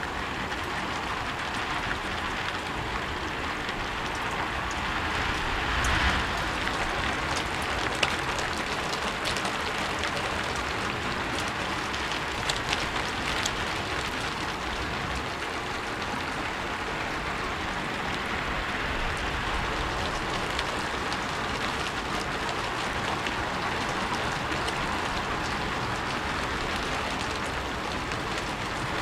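Steady rain falling on a rooftop, an even dense patter, with a few louder single drops striking around the middle.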